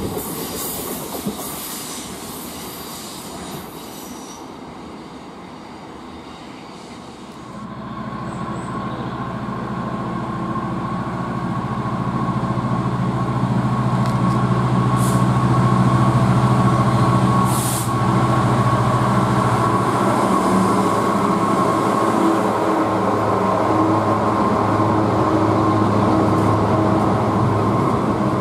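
A freight train fades into the distance. Then a Class 66 diesel locomotive approaches: its steady engine drone grows louder for about eight seconds as it draws near and passes. The long rake of covered car-carrier wagons follows with a steady rolling rumble on the rails.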